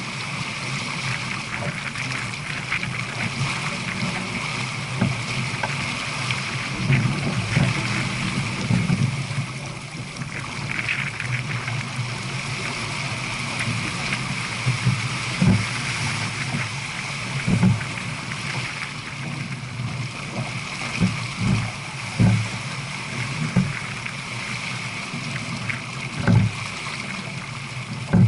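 Water rushing and splashing along the hull of a J/24 keelboat sailing downwind at about 7 knots: a steady hiss with irregular low thumps every few seconds.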